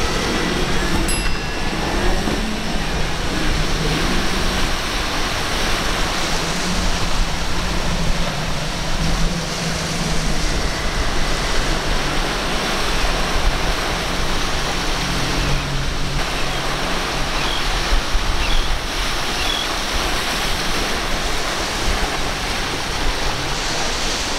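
Rough surf and breaking waves making a steady rush, with the low drone of boat outboard engines running beneath it.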